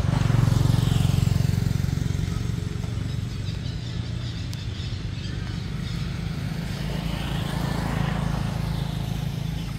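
A motor engine running steadily, loudest in the first two seconds and swelling again around eight seconds.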